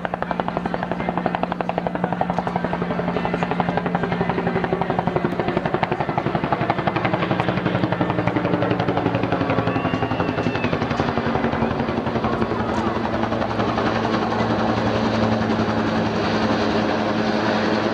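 Helicopter rotor beating fast and steadily with its engine running, the engine tone rising slightly in the second half.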